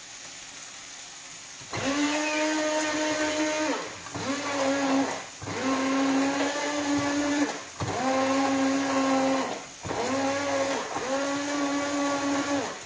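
Electric hand blender starting about two seconds in and running in about six pulses of one to two seconds each, a steady motor whine with short dips between the pulses, as it purées cooked broccoli and salt cod into a cream.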